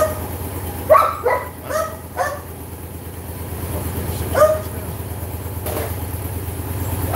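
A dog barking in short, sharp barks: a quick run of about five in the first couple of seconds, then one more about four and a half seconds in. Under the barks runs the steady hum of a motorcycle engine idling, and a single knock comes near the end.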